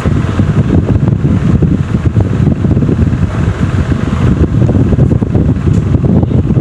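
Loud, unsteady low rumble of moving air buffeting the phone's microphone.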